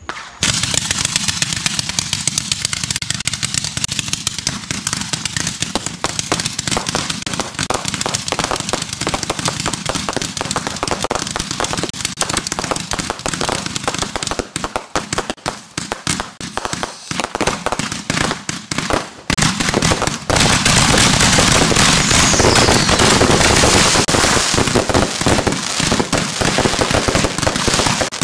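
Fireworks finale: dozens of aerial fireworks launching and bursting in rapid, overlapping succession, with crackling stars. About 20 seconds in it builds to a louder, continuous wall of bangs and crackle.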